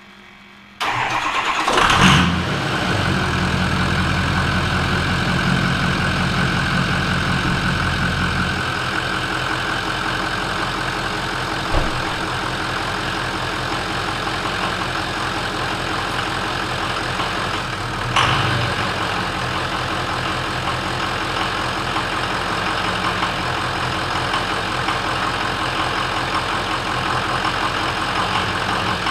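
Ford 6.0 Powerstroke V8 turbodiesel cranking and firing right up about a second in, then idling steadily inside a garage. This is its first start after an oil cooler replacement, with the high-pressure oil system primed by filling oil through the oil filter housing. A short, louder burst comes about two-thirds of the way through.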